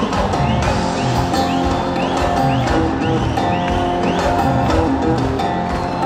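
Live band music, instrumental: electric guitar and bass guitar playing over a steady, even beat.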